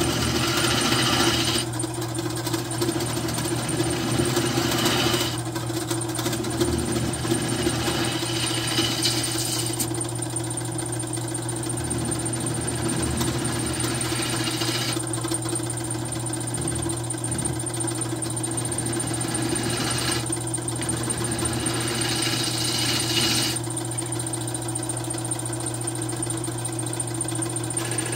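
Wood lathe running with a steady hum while a gouge cuts the face of a spinning cherry-burl plate blank. The cutting hiss comes in several separate passes and is loudest near the start and about four to five seconds in.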